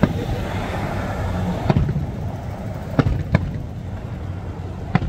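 Aerial fireworks shells bursting: five sharp booms at uneven intervals, two of them close together about three seconds in.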